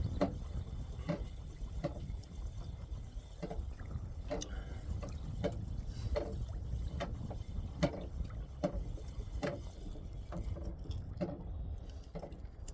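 Water lapping against a kayak hull with small irregular knocks and splashes, about one every second, over a steady low rumble.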